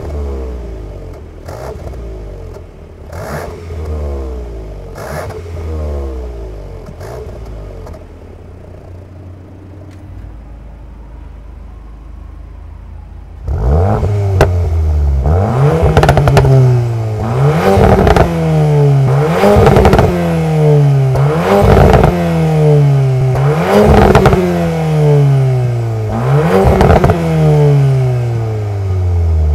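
Volkswagen Golf 8 R Variant's turbocharged four-cylinder engine revved in a series of blips at standstill through a remote-controlled valved cat-back exhaust. The first blips come with the exhaust valves closed and are fairly subdued, then it idles briefly. About halfway through the valves open and the revs become much louder, with crackles at the top of each blip.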